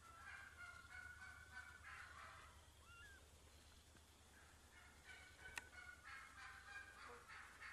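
Faint wild turkey hens calling: a run of yelps, then quicker, choppier cutting notes from about five seconds in. A single sharp click about five and a half seconds in.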